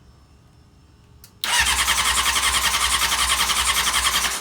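Honda CBR600 F4i inline-four being cranked on its electric starter, an even rapid pulsing that starts about a second and a half in and stops abruptly about three seconds later without the engine catching. The engine is not firing, which the owner puts down to it not yet getting fuel.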